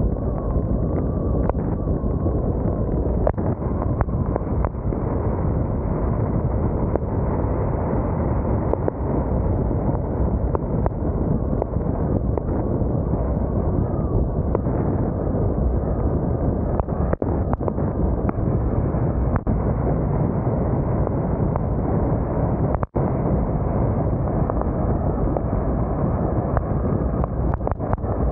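Steady rush of wind buffeting the microphone of a vehicle driving at speed on a wet highway, mixed with road and tyre noise, with a brief dropout about 23 seconds in.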